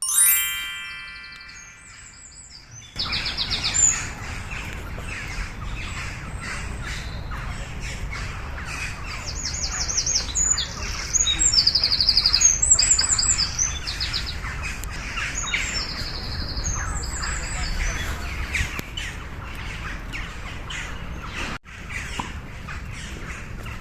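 Songbirds singing outdoors: repeated high chirps and quick trilled phrases over a steady low rumble of background noise. The first two seconds hold a short ringing tone that dies away before the birdsong starts.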